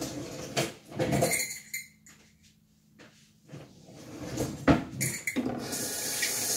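Kitchen dishes and utensils clattering and knocking on a counter in several separate handlings, the sharpest one just before five seconds in; then water starts running steadily from a tap about five seconds in.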